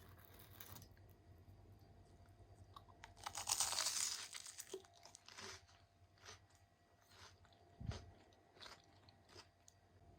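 A crunchy bite into a crisp homemade tsukimi pie about three seconds in, followed by faint chewing and small crackles, with a soft low thump near the end.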